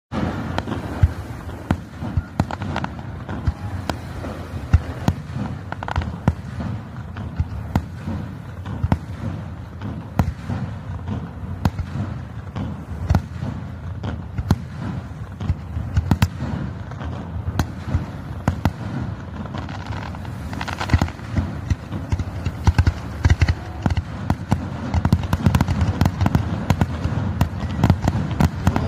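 Aerial fireworks display: shells bursting overhead in a steady run of bangs and pops over a low rumble, coming thicker and louder in the last several seconds.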